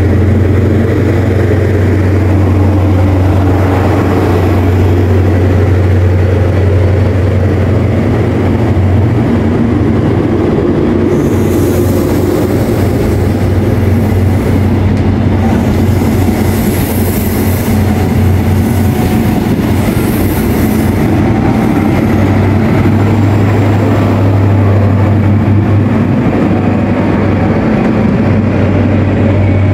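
GWR High Speed Train (InterCity 125) with Class 43 diesel power cars pulling away from the platform: a steady, deep engine drone with the coaches rolling past. A high hiss joins in for several seconds in the middle.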